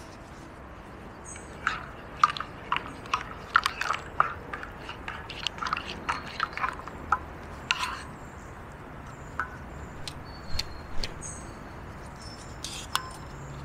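Plastic spork stirring coffee in a metal camping mug, tapping and scraping against the mug's sides in a run of quick clicks that thin out after about eight seconds.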